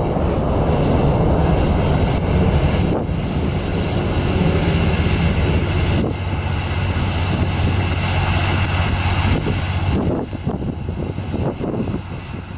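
Rocket salvo from a Tornado multiple rocket launcher: a loud continuous roar of rocket motors, with a sharper crack about three seconds in and another about six seconds in. It breaks up and wavers in the last couple of seconds.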